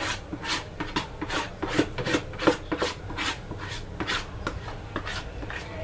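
A utensil scraping the last batter out of a container: short repeated scraping strokes, about two to three a second.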